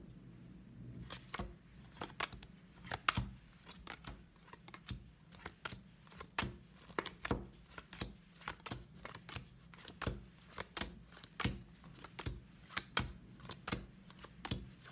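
Bicycle Ghost Deck playing cards dealt one at a time onto a wooden table, each card landing with a short, sharp snap, about two a second in a steady run.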